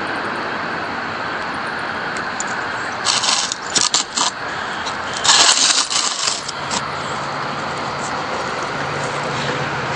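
Steady background hiss, broken twice by loud scraping and rustling bursts of handling noise, about three and five seconds in, as a hand moves the camera and phone.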